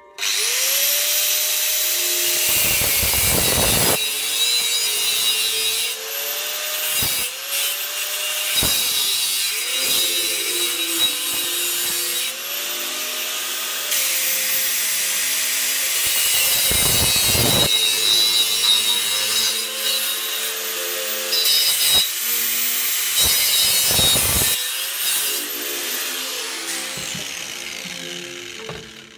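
Angle grinder cutting into a square steel tube: a harsh, high-pitched grinding, with the motor's pitch sagging under load and climbing back again several times. It winds down near the end.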